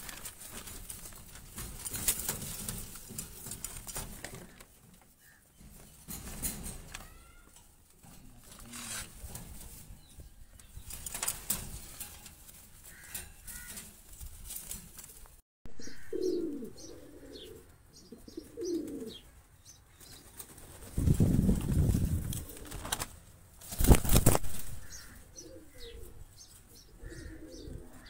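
Fantail pigeons cooing in low, repeated coos, with several noisy bursts of wing flapping; the loudest bursts come in the second half.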